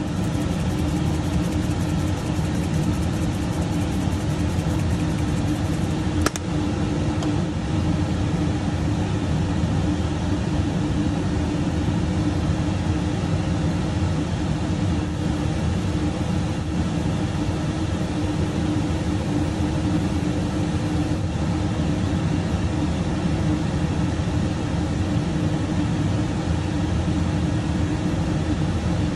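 A steady mechanical hum with a constant low tone that does not change, and a single sharp click about six seconds in.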